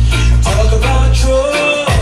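Recorded music with a singing voice over heavy bass, played loud through a competition sound system.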